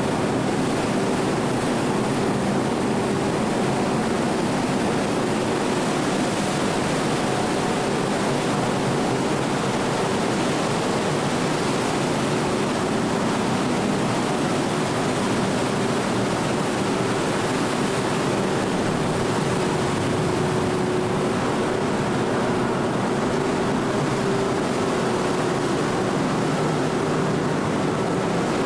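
The ferry's machinery running steadily with water rushing along the hull: an even rushing noise with a faint, steady hum underneath.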